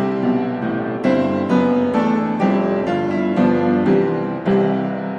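Background piano music: single notes and chords struck about twice a second, each dying away, with a final chord near the end left to ring.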